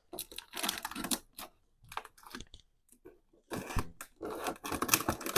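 Cardboard shipping box and its packing tape being handled and torn at: a run of irregular crackling, tearing noises with short pauses between them.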